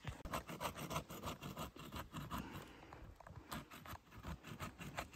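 Dry branches and brush in logging slash crackling and rustling underfoot, a run of irregular light snaps and scrapes.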